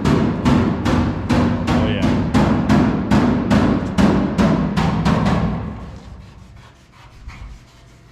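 Background music with a steady, heavy drum beat, about two and a half beats a second, fading out about three quarters of the way through.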